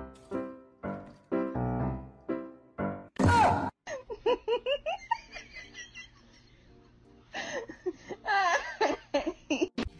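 Background music of short plucked notes, evenly spaced, for the first three seconds, then a loud burst and stretches of high, wavering cries.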